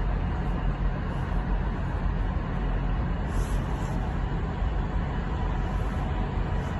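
A train standing at the platform with its engine running: a steady low rumble that holds even throughout.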